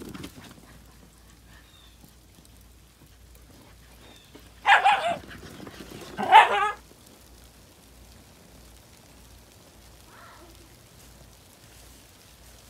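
Shiba Inu barking twice, two loud calls of about half a second each, about a second and a half apart.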